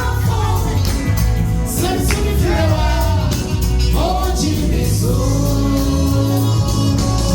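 Gospel song: singing voices over band accompaniment with a steady, heavy bass line.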